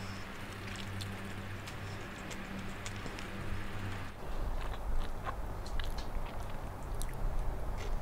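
Close-miked chewing and biting of crunchy food, with scattered crisp crunches, busier in the second half.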